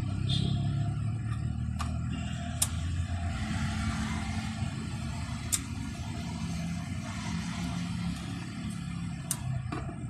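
A steady low rumble, like a motor vehicle running nearby, with a few sharp clicks spread through it.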